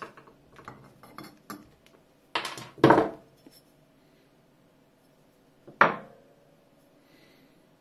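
Metal hand tools, a pin punch and a screwdriver, clinking and knocking against an antique brass bell being handled. Light clicks come first, then two sharper knocks close together just before three seconds in and one more near six seconds, each followed by a faint ring.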